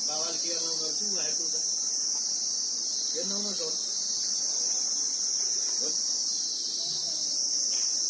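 Steady, high-pitched drone of insects chirring without a break. Faint voices come through a few times underneath.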